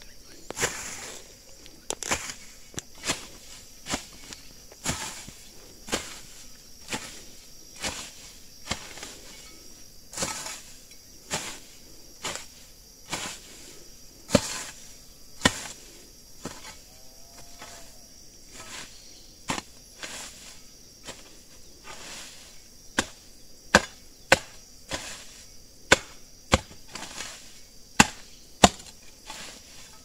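Long-handled garden hoe chopping into weedy, grassy soil: irregular sharp strikes about one to two a second as the weeds are hacked out by hand.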